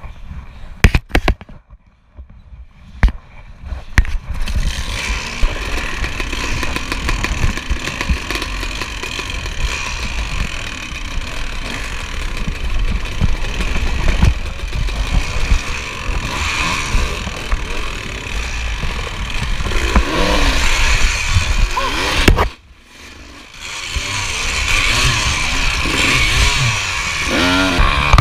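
Dirt bike engines revving up and down, the pitch rising and falling, on a rough woods trail. A few sharp knocks in the first seconds with little engine sound; the engine noise cuts out for about a second roughly two-thirds of the way through, then picks up again.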